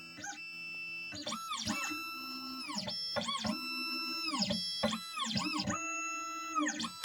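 Stepper motors of an Xhorse Dolphin XP-005 key cutting machine whining as the machine moves into position before a cut. There are several rise–hold–fall runs of tone, one after another.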